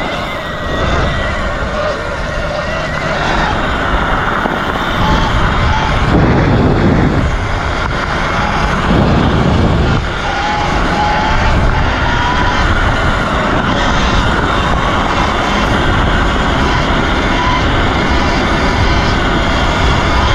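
Steady wind and road noise from a ride on a Sur-Ron electric dirt bike, with a faint whine that drifts in pitch. There are two louder rushes, about six and nine seconds in.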